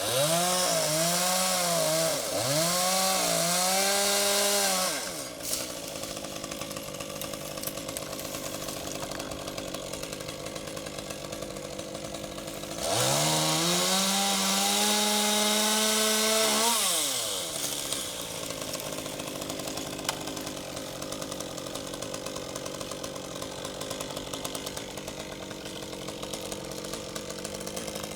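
Two-stroke chainsaw revving at full throttle, its pitch dipping and recovering several times under load, then dropping back to a lower steady idle about five seconds in. It revs up again for about four seconds midway, then returns to idle.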